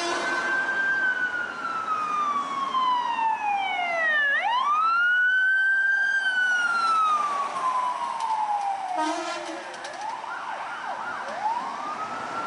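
Emergency vehicle siren on a responding fire department rescue ambulance, in a slow wail that rises and then falls in pitch over several seconds, twice. Near the end it switches to a few quicker up-and-down whoops before rising again.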